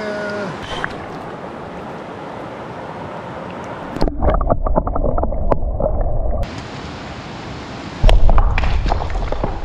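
Steady rush of river water flowing over rocks. About four seconds in it turns muffled and bubbly for a couple of seconds as the camera dips underwater beside a rainbow trout held in the current, then the open-air river sound returns, with loud low rumbling near the end.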